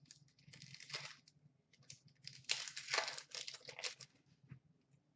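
Upper Deck SP Authentic hockey card pack wrapper crinkling and being torn open as the cards are pulled out. A short bout of rustling at the start, then a longer one about two and a half seconds in.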